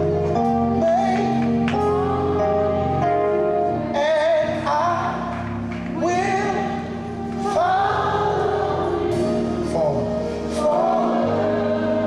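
Live gospel music: a choir singing over held organ or keyboard chords.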